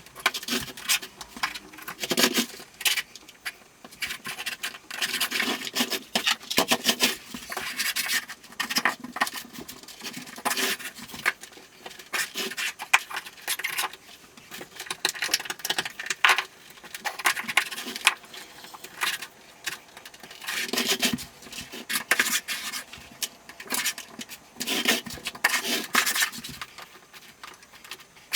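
Electric floor-heating cable being pushed into the studs of a Schluter Ditra-Heat plastic uncoupling mat: irregular clicks, scratching and rubbing of the wire against the mat.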